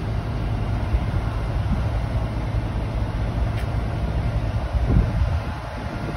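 Heavy truck's diesel engine idling with a steady low rumble, with a dull thump about five seconds in.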